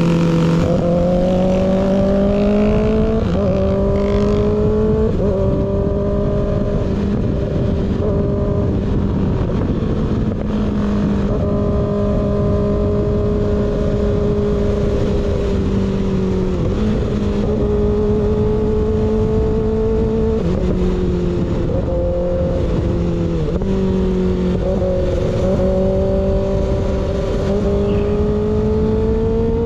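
Kawasaki ZX-6R inline-four running through an unbaffled M4 GP19 slip-on exhaust while riding. The engine note climbs and dips every few seconds with throttle and gear changes, over a steady rush of wind noise.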